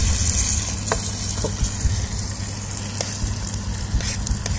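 Hot stew bubbling and sizzling in a metal mess tin over a steady low rumble, with a few light clicks of a metal spoon against the tin as it is stirred.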